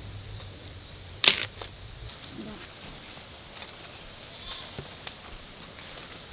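A sharp snap about a second in, then light rustling and scattered clicks of dry fallen bamboo leaves and stems being stepped on and handled at the foot of a bamboo clump.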